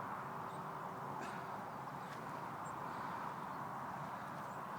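Steady rushing of flood water running across waterlogged ground, with a few faint bird chirps.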